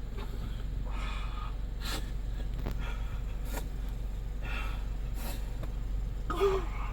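Close breathing sounds, a breathy puff roughly once a second, over a steady low hum, with a short pitched vocal sound near the end.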